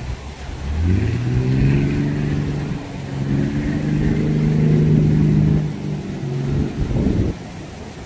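A motor engine revs up about a second in, holds a steady pitch for several seconds, then falls away and breaks up in the last couple of seconds.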